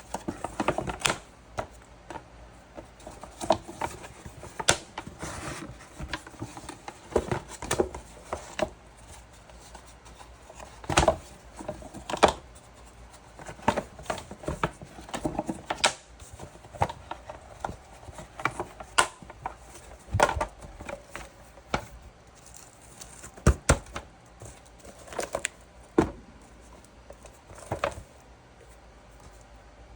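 Irregular light clicks, taps and knocks of hard objects being handled and set down, with a few sharper knocks about eleven, nineteen, twenty-three and twenty-six seconds in.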